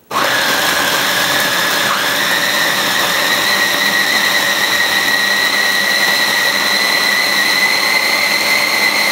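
Mini food processor switching on and running continuously, puréeing a thick roasted red pepper and walnut dip. Its steady motor whine rises slightly in pitch as it runs.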